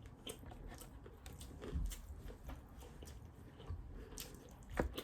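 Soft chewing and biting from someone eating a fried chicken sandwich, with scattered small crunchy clicks and a couple of light thumps.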